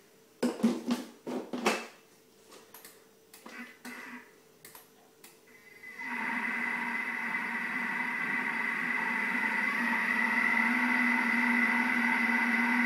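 A Thermomix lid is fitted and locked onto the mixing bowl with a few clicks and knocks. About six seconds in, the Thermomix motor starts and runs with a steady whine that gradually gets louder as the speed is turned up, mixing sponge-pudding batter.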